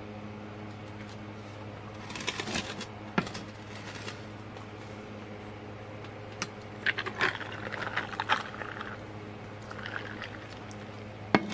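Glassware clinking and knocking, then hot tea poured from a glass pitcher over ice cubes in a tall glass, the ice clinking and crackling for about two seconds in the middle. A steady low hum runs underneath.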